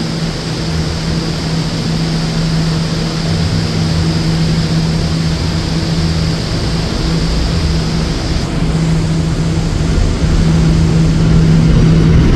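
R179 subway car HVAC system running: a steady rush of air from the blowers over a constant low hum. A high hiss drops out about two-thirds of the way through.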